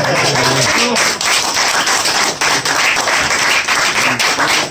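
Audience applauding, a dense patter of clapping hands.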